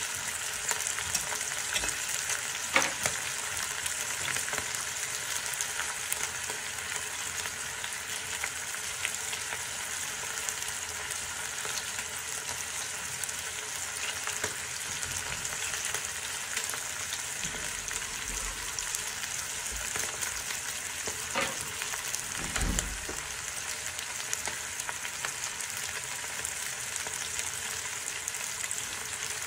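Meat and onions sizzling steadily in a stainless-steel pressure cooker pot, with a few light clicks and one soft thump partway through.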